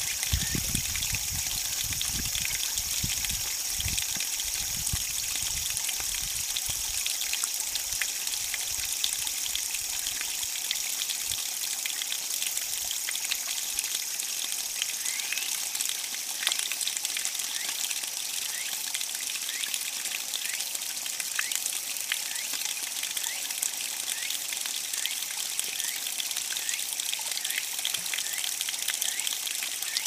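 Small waterfall trickling and splashing into a shallow rocky brook, with a steady high drone of cicadas behind it.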